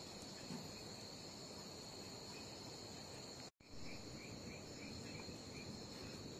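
Night insect chorus: a steady high-pitched trill, with a short run of faint, evenly spaced chirps about four seconds in. The sound drops out for an instant a little past halfway.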